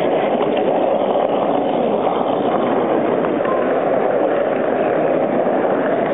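O gauge model Southern Region electric multiple unit running along the track, a steady rumble without a break.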